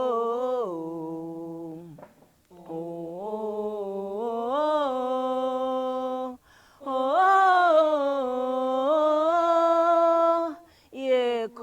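Unaccompanied solo voice singing a slow wordless refrain in long held notes that bend up and down, in three phrases with short breaks for breath.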